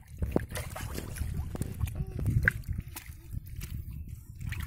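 Live small fish and eels wriggling and flipping in a plastic bucket, giving scattered wet slaps and sharp clicks over a low rumbling background.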